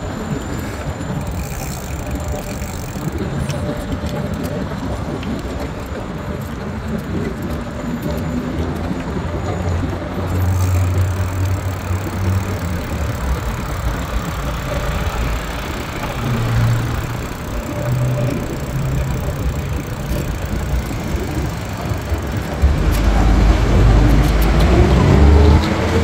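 City street traffic: a steady wash of cars and engines passing, mostly a low rumble. The rumble grows louder about three-quarters of the way through, and a rising whine comes in near the end.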